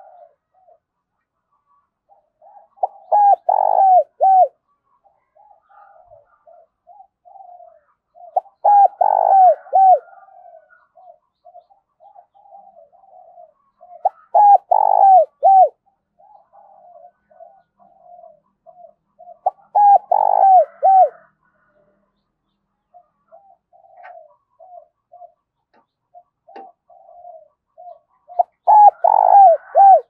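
Spotted dove cooing: a caged decoy bird giving its calling song. Loud bursts of repeated coos come about every five to six seconds, with a longer gap near the end, and softer, lower coos fill the pauses.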